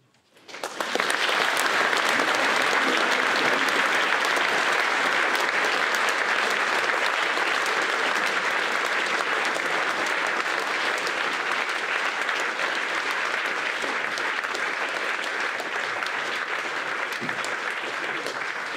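Audience applauding: the applause breaks out about half a second in and holds steady, easing slightly near the end.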